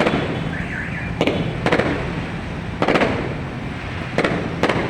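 Aerial fireworks bursting overhead: about six sharp bangs, a second or so apart and some in quick pairs, over a steady rumble of the display.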